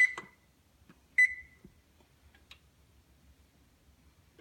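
Electronic oven control panel beeping as its keys are pressed to set the baking temperature: two short, high beeps about a second apart, with faint button clicks between.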